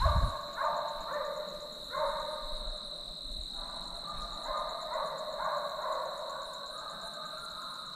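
Hunting hounds baying, several voices calling again and again and overlapping into a longer stretch about halfway through, over a steady high-pitched tone.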